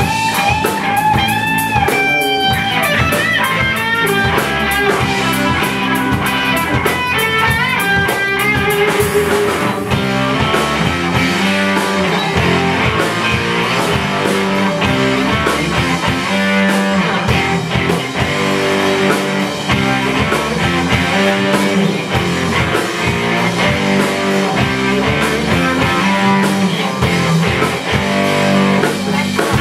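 Live instrumental rock from an electric guitar, electric bass and drum kit: the guitar plays a lead line of bent, wavering notes over the bass and drums. About ten seconds in the lead bends give way to a denser full-band passage with busy cymbal and drum playing.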